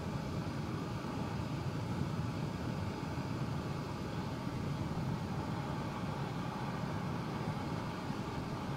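A steady low rumble of outdoor background noise, even throughout, with no distinct events.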